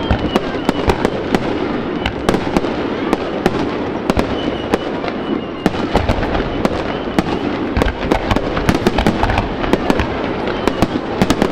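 Aerial fireworks display: shells bursting in a rapid, irregular string of sharp cracks and bangs, several a second, over a constant background din, with heavier booms from about six seconds in.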